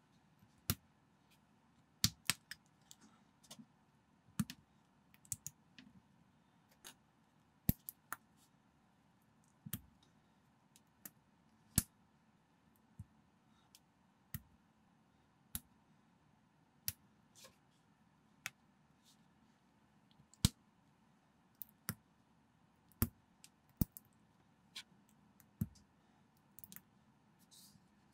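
Small plastic building bricks being handled and pressed together by hand: sharp, irregular clicks, about one or two a second.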